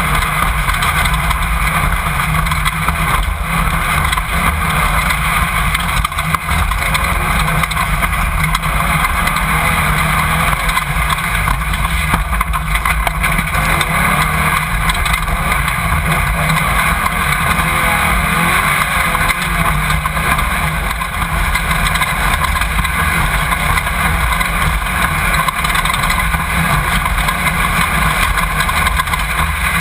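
Off-road race car's engine running steadily under load, mixed with wind and chassis rumble, heard loud from a camera mounted on board the car.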